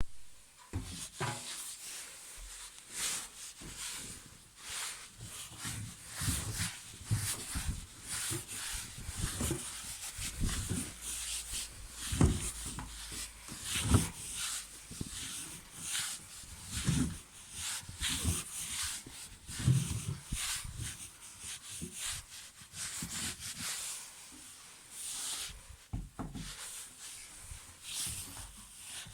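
A large blanket rubbing and shifting inside a Gorenje washing machine drum, with irregular fabric scrapes and low thumps.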